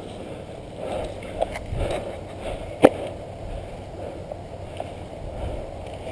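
Low rumbling handling and movement noise with soft rustles, broken by one sharp click nearly three seconds in and a smaller click earlier.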